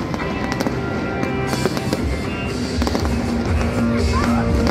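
Fireworks going off, several sharp cracks and crackle, over loud music with held notes.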